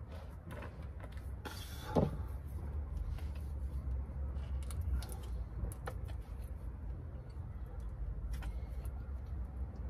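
Light clicks and a short metal scrape from hand tools working on the front kingpin and steering joint of a Ford Transit MK3, with a quick falling squeak about two seconds in. A steady low rumble runs underneath.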